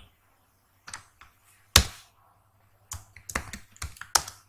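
Computer keyboard keys clicking as code is typed: a couple of separate keystrokes, then a quick run of presses near the end. A faint steady low hum lies underneath.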